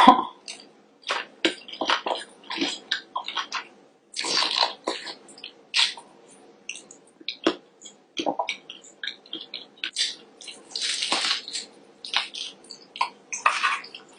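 Loud, wet chewing and mouth smacking of a person eating fried seafood, in irregular bursts with short pauses between bites.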